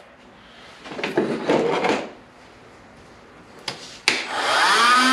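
A brief rustle of handling, then two sharp clicks and a small power tool's motor that spins up with a rising whine about four seconds in and settles into a steady pitch.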